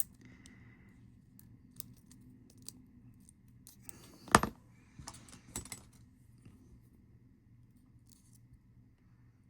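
Small tool clicks and scrapes on a watch module as the old battery is taken out: scattered light ticks, one sharp click about four seconds in, then a few more just after.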